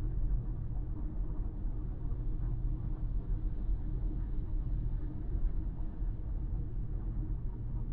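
A car's steady low road and engine rumble while cruising at highway speed.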